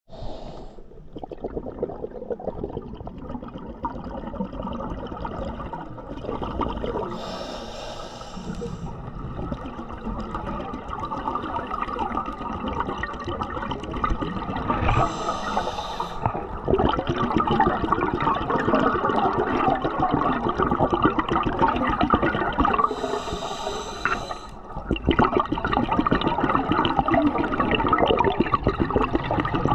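Scuba diver's breathing through the regulator underwater: a short hiss about every eight seconds, with a long stretch of crackling, gurgling exhaled bubbles between, following the rhythm of the diver's breaths.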